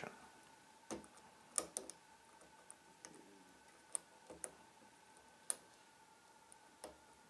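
Faint, irregular metallic clicks and ticks of a lock pick working the pins inside a Trioving 5632 padlock under tension, about a dozen small taps scattered over the seconds, over a faint steady hum.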